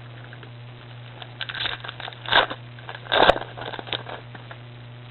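Foil wrapper of a Pokémon trading-card booster pack crinkling and being torn open, in irregular bursts loudest around the middle, over a steady low hum.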